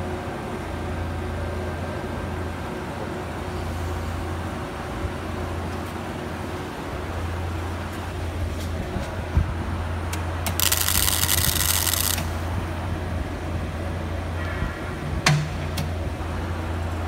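Band saw butt welding machine giving a steady low electrical hum. About ten and a half seconds in there is a burst of hiss lasting under two seconds, and a sharp click comes near the end.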